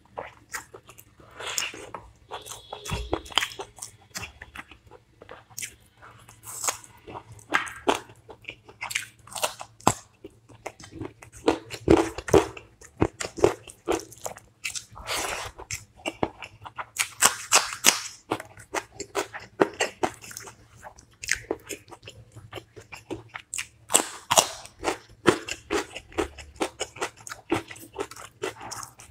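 Close-miked eating: repeated crunchy bites and chewing in an irregular run.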